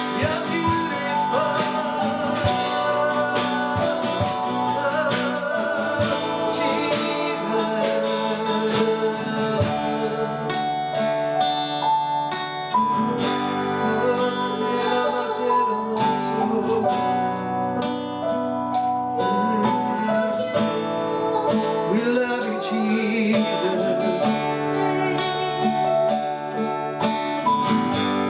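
Worship music: an acoustic guitar strumming steadily, with singing.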